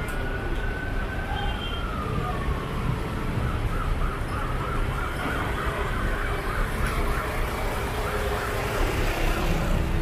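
Fire truck siren sounding over a low street rumble: a held tone that slowly falls in pitch over the first two seconds or so, then a fast warbling yelp for several seconds before it fades.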